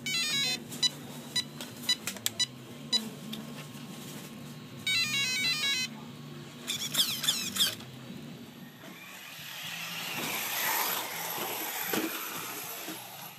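Electronic startup tones from the HPI WR8 Flux's brushless speed controller, played through the motor: a quick stepped run of notes, a string of single beeps about half a second apart, another stepped note sequence about five seconds in, and a short warbling tone. From about eight seconds in, the brushless motor whines and the tyres hiss over dirt as the car drives, swelling and fading.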